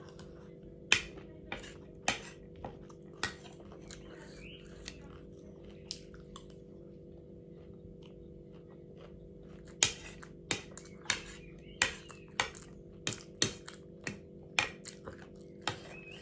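Close-up eating of crunchy chatpate, the spicy puffed-rice snack: a run of sharp crunches and clicks, a few in the first seconds and then a dense run over the last six seconds, over a steady low hum.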